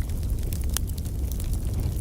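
Wood fire crackling in a fireplace: scattered sharp pops and ticks over a low, steady rumble, with one clear pop near the middle.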